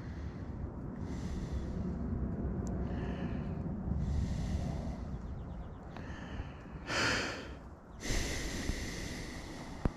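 A person breathing heavily close to a chest-mounted camera microphone: a run of noisy breaths over a low rumble, the loudest about seven seconds in. A single sharp click comes just before the end.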